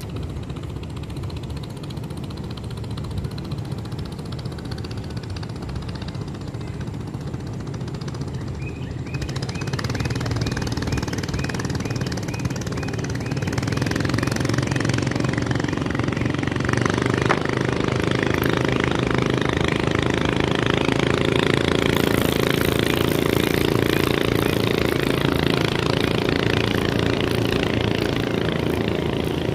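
Boat engine running with a rapid knocking beat, getting louder about ten seconds in and again a few seconds later, then staying steady.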